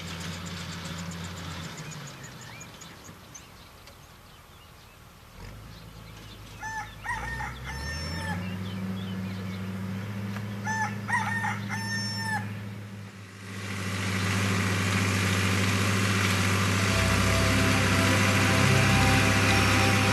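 A rooster crowing twice, about four seconds apart. In the second half a tractor engine runs steadily and grows louder.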